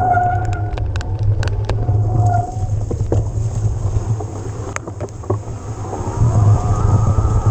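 Electric mountain bike ridden over rough trail: steady wind rumble on the microphone, with sharp rattles and knocks from the bike. Two short whines come early, and a whine rises in pitch near the end, from the Yamaha PW-X mid-drive motor working under assist.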